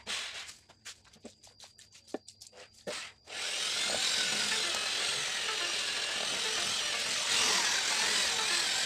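A run of short clicks and taps for about three seconds. Then an electric drill runs steadily, spinning a wet sponge pad that scrubs against the porcelain of a ceramic squat toilet pan.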